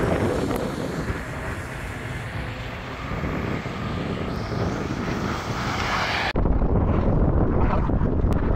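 Wind on the microphone together with the rush of passing highway traffic. About six seconds in it cuts abruptly to a heavier, lower wind rumble.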